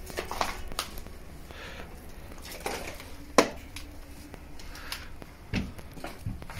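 Scattered knocks, scrapes and crunches of debris and old objects in a cluttered room, with one sharp knock about three and a half seconds in.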